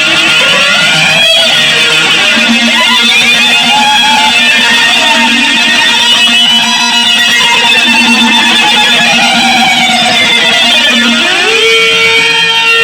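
Loud noise-jam music: dense, guitar-like tones with pitches sliding up and down. About eleven seconds in, a low held note slides up and stays on the higher pitch.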